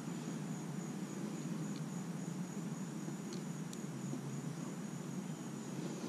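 Crickets chirping: a steady high trill over a low, even background rumble.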